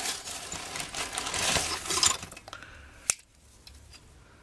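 A plastic bag rustling as a hand rummages through scrap metal parts inside it, then a few metal clinks, one sharp clink about three seconds in.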